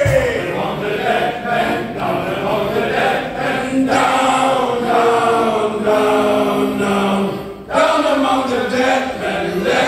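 Men's shanty choir singing together in long, held notes, with a brief break for breath about three-quarters of the way through.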